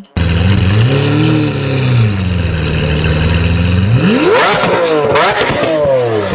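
Lamborghini Aventador LP700-4's V12 running through a Fi Valvetronic exhaust: idling with a gentle rise in revs about a second in, then two quick throttle blips near the end, the pitch climbing sharply and falling back each time.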